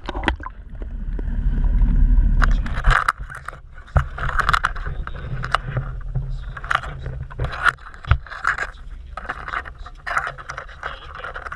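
A loud, low rush of water for the first few seconds. Then scraping and clattering as crabs are handled in a wire crab pot, with sharp knocks about four and eight seconds in, over a low steady hum.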